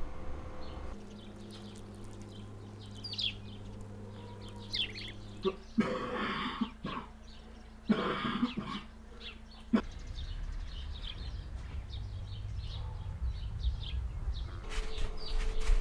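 A person coughing in two rough bouts, about six and eight seconds in, with small birds chirping faintly in the background.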